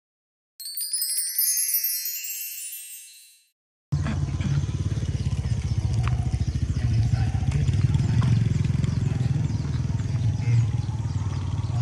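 A brief shimmering, sparkling chime sound effect sweeps through many quick high tones. After a short silence, a steady low rumble with a fine rapid flutter begins and carries on.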